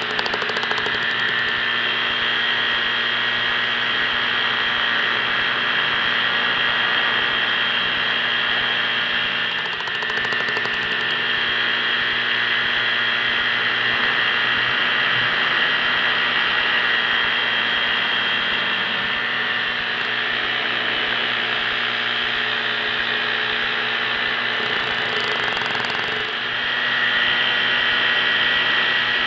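Paramotor engine and propeller running steadily in flight, a constant drone. The level dips briefly about ten seconds in and again near the end, then comes up a little.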